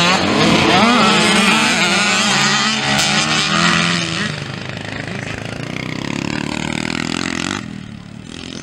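Small youth motocross bike engines revving hard under race throttle, their pitch rising and falling. The sound changes about four seconds in and drops in level near the end.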